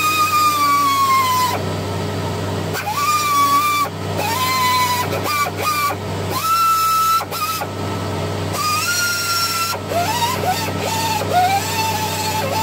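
Air die grinder run in about half a dozen short bursts, each a steady high whine that sags a little in pitch as the bit bites, grinding down the edges of a car grille.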